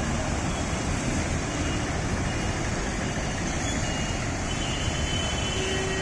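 Water jetting up through a road surface from a burst underground pipe, gushing and splashing with a steady rush.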